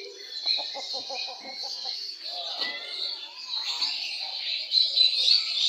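Many caged songbirds chirping and twittering at once in a dense, continuous chorus of high calls.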